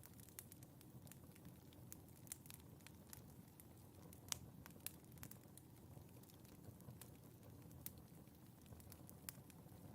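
Wood fire burning in a fireplace: a low steady rush of the flames with frequent sharp crackles and pops at irregular intervals, the loudest pop about four seconds in.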